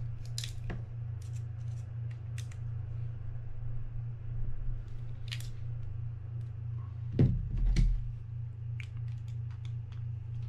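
Light metallic clicks and scrapes of a small screwdriver working against the shaft and gear of a disassembled spinning reel, with two heavier thumps about seven seconds in, over a steady low hum.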